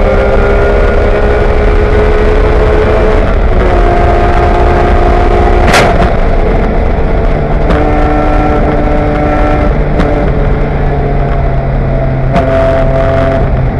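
BMW E46 M3 race car's inline-six engine running hard, heard from inside the cockpit, its pitch stepping a few times. About six seconds in comes one sharp, loud bang: the hood tearing loose at speed and slamming into the windshield. A few lighter knocks follow.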